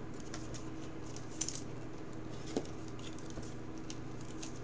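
Light clicks and rustling of a baseball card being handled and slid into a clear rigid plastic card holder, with one sharper plastic click about two and a half seconds in. A steady low hum runs underneath.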